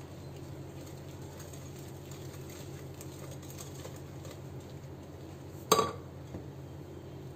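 Wire whisk stirring thick batter in a glass bowl, a soft patter of strokes, then a single sharp clink of metal on glass about six seconds in as the whisk is left in the bowl.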